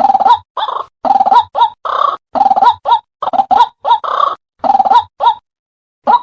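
White-breasted waterhen (ruak-ruak) calling in a rapid, loud series of short croaking notes, about two to three a second, with a brief pause near the end before the calls resume. The calls are a trapping lure.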